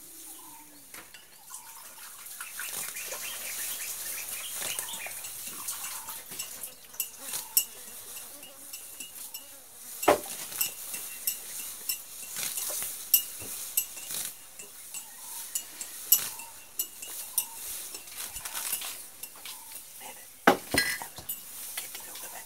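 A young Sri Lankan elephant grazing, tearing up grass: irregular sharp snaps and rustles over a steady high hiss, with two louder cracks about ten and twenty seconds in.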